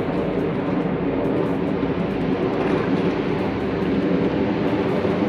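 Steady low engine drone with a constant hum, like a large motor running at an even speed.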